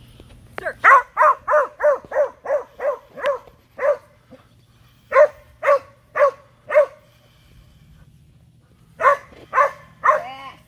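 A dog barking in quick runs of sharp barks, about three a second: a string of about nine, a pause, four more, then a few more near the end.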